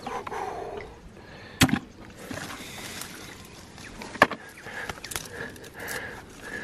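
Wet mud squelching and sloshing as someone moves and digs through soft mangrove mud, with two sharp clicks, about a second and a half in and about four seconds in.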